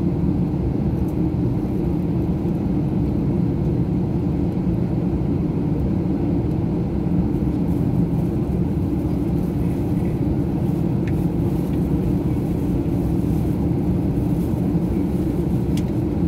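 Steady low rumble inside a jet airliner's cabin as it taxis, the engines running at taxi power.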